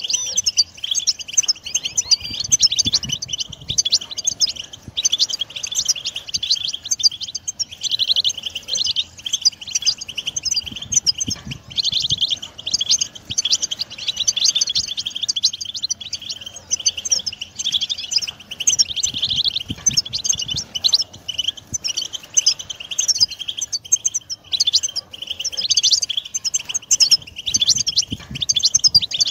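European goldfinch song: fast, unbroken twittering with tinkling trills and chirps, several phrases overlapping.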